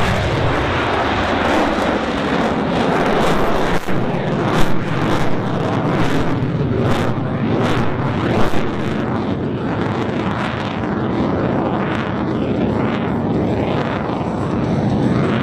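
Loud jet noise from a MiG-29A fighter's twin turbofan engines during a display pass. A low tone falls in pitch over the first few seconds as the jet goes by, then a steady rushing noise wavers and swells.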